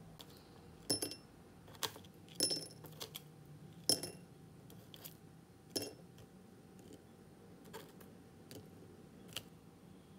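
Chopsticks and sugared candied orange peel strips clinking against a small glass jar as the peels are dropped in. About eight sharp, irregular clinks, each with a brief ring, the loudest in the first four seconds.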